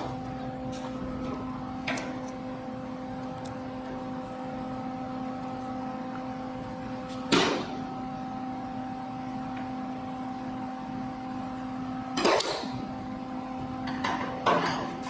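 Short, sharp bursts of welding on a car door's sheet-metal edge, about five tacks a few seconds apart, over a steady low hum.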